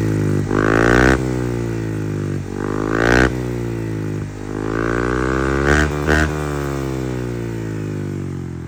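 Honda Click 160 scooter's single-cylinder engine revved through an aftermarket Apido Blue Tip power-pipe exhaust, its pitch rising and falling several times in throttle blips, with a few short sharp pops, then easing back toward idle near the end.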